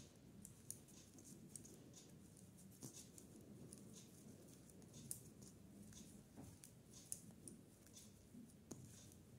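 Faint, irregular ticks and light scraping of metal knitting needles and wool yarn as a sock is hand-knitted, over a low room hum.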